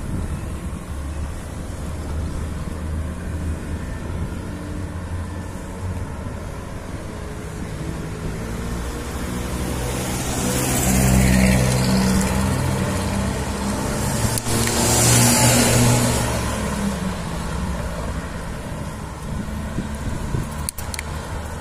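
Road traffic: a steady low rumble of engines, with two vehicles passing close, one about ten seconds in and another about fifteen seconds in.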